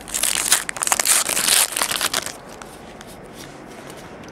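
Foil trading-card pack wrapper being torn open, crinkling and crackling for about two seconds.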